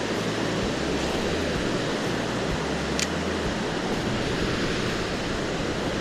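Steady rushing of fast-flowing river water, with a low rumble of wind on the microphone and one short click about three seconds in.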